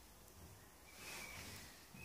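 Near silence: faint room tone, with a soft swell of noise about a second in.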